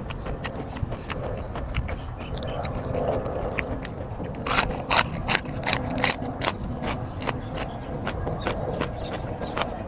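Close-up mouth sounds of a raw green vegetable stalk being bitten and chewed: a quick run of loud, crisp crunches from about halfway in, with smaller wet chewing clicks before and after.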